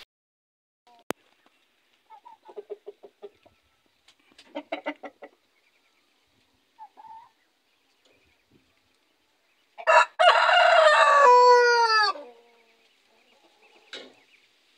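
Barred Plymouth Rock rooster crowing once, loud, about two seconds long with a falling tail, about ten seconds in. Before it come two short runs of rapid clucking from the chickens.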